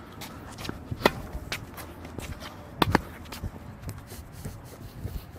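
Sharp knocks of a tennis ball off rackets and bouncing on a hard court, the loudest about a second in and a close pair near three seconds, with scuffs and light patter of tennis shoes as the player moves in toward the net.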